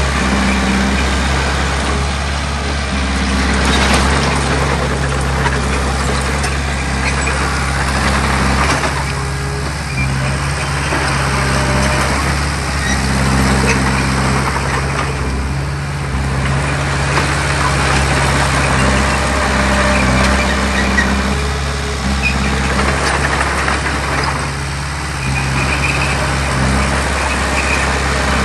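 Heavy diesel earthmoving machinery at work: a large engine running loud and steady, its pitch stepping up and down every few seconds as the load changes, with surges of broad working noise.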